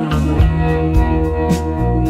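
Instrumental background music with guitar, a bass line and a steady beat.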